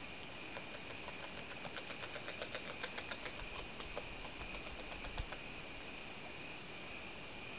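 North American beaver chewing at the water's edge: a quick run of small crunching clicks, about six to eight a second, that thins out and stops a little over five seconds in.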